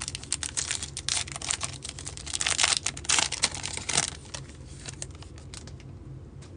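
Plastic-foil baseball card pack wrapper being torn open and crinkled by hand. Dense crackling for about four seconds, then a few faint rustles as the cards come out.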